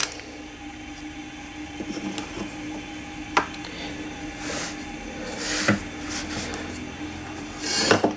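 Hold-down clamp being slid by hand into a slot of the CNC table: a sharp click about three seconds in, soft scraping swells, and another click near six seconds, over a steady hum.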